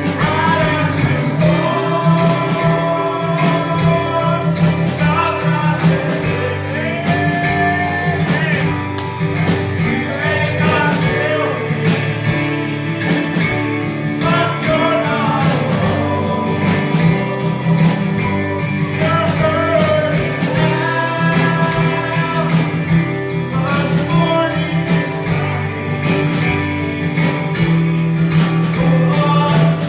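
A worship song: a singing voice over guitar accompaniment with a steady beat.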